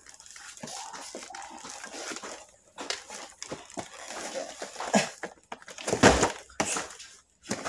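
Cardboard boxes of electrical wire being lifted and shifted close to the microphone: rustling and scraping, with several loud knocks in the second half. Under it, the hard breathing of the man carrying them.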